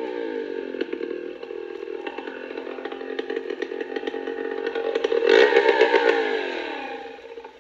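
Two-stroke chainsaw engine dropping from high revs to an uneven, ticking idle, revving up again about five seconds in, then winding down and fading near the end.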